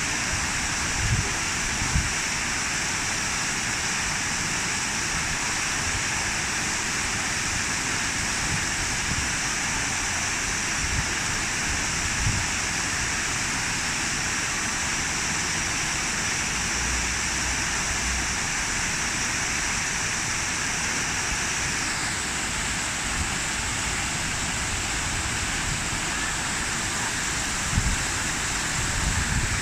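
Steady rush of running water, a constant splashing hiss, with a few brief low bumps near the start and near the end.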